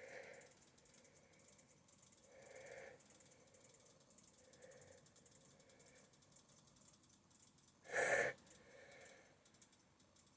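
A person's faint, breathy catches of breath, a handful of short ones a couple of seconds apart and a sharper, louder gasp about eight seconds in: the hitching inhalations of a sneeze building up during a sneezing fit.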